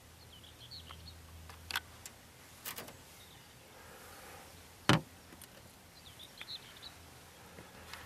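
Sharp clicks and knocks, the loudest a single hard knock about five seconds in, while a bird sings the same short phrase twice in the background, about a second in and again near six seconds.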